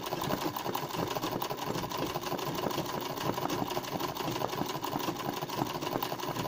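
Domestic sewing machine running steadily at speed, stitching free-motion embroidery into fabric: a fast, even run of needle strokes.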